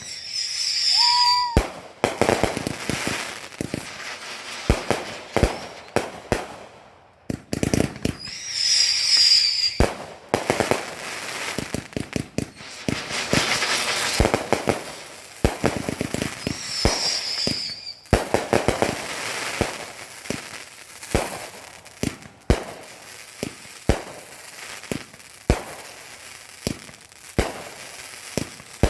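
Small ground firecracker-style fireworks from a Big Box of Bombs assortment going off one after another: stretches of fizzing and hissing as they burn, then sharp bangs, dozens in all. A short high whistle sounds three times, near the start, about a third of the way in and a little past halfway.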